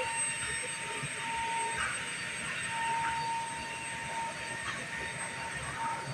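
Electrolux washing machine running its spin cycle: a steady whirring hum, with a thin whine that fades in and out.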